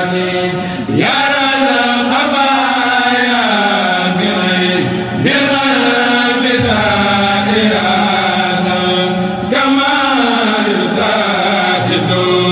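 A kourel, a group of male Mouride chanters, chanting an Arabic xassida together in unison. The long, gliding phrases start afresh about a second in, again about five seconds in, and near ten seconds.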